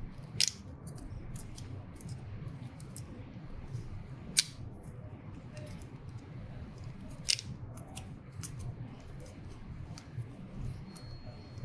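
Small sharp plastic clicks and taps from handling an inkjet printer's ink damper and ink syringe, three louder clicks standing out several seconds apart, over a low steady hum.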